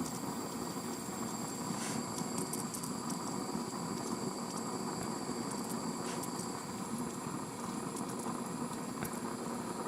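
Soldering torch heating a copper pipe joint: the flame hisses steadily, with a few faint ticks.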